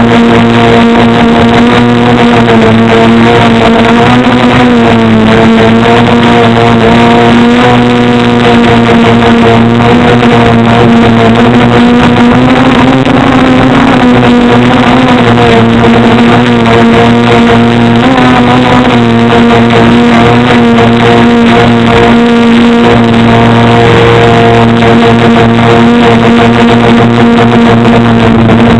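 DJI Phantom 2 quadcopter's motors and propellers droning steadily, their pitch dipping and rising slightly a few times as the drone manoeuvres and descends.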